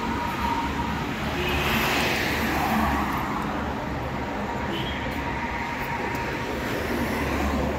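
Street traffic: a steady rumble of motor vehicles, with a car coming closer near the end.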